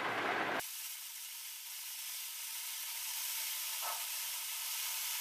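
Scissors cutting through newspaper in long strokes, a steady crisp hiss.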